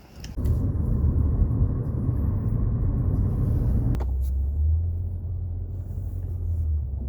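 Low, steady rumble of a car ride heard from inside the cabin, engine and road noise, with the sound changing about four seconds in.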